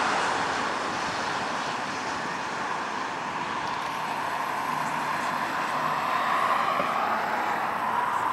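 Airbus A330-243's Rolls-Royce Trent 700 engines, a steady rushing jet noise that fades as the airliner moves away on its landing, then grows a little louder again in the last few seconds.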